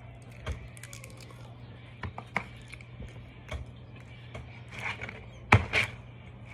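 Fingers pulling apart a whole fried fish over a plastic takeout container: scattered small crackles and clicks, with two sharper clicks about five and a half seconds in, over a low steady hum.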